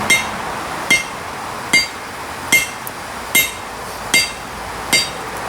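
Blacksmith's hammer blows on a hot steel sledgehammer head at the anvil, seven strikes in a steady rhythm about one every 0.8 seconds, each with a short metallic ring. The blows are upsetting the sledge head, trying to squash the steel around the eye.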